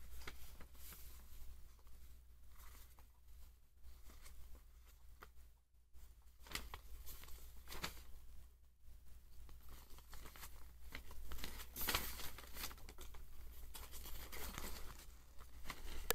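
Folded paper leaflet rustling and crinkling as it is unfolded and turned over by hand, in irregular crackles that come thicker in the second half.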